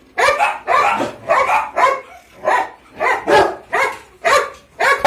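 A dog barking repeatedly: about a dozen barks, two or three a second.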